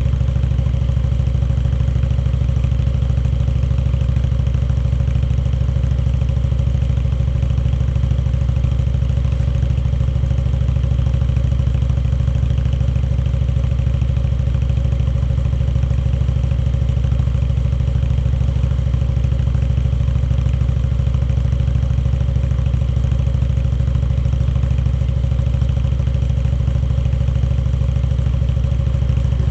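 Indian Chieftain Dark Horse's V-twin engine running steadily at an even, unchanging speed.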